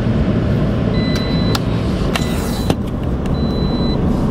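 Car driving, heard from inside the cabin: a steady low road and engine rumble, with a faint high tone coming and going and a few light clicks.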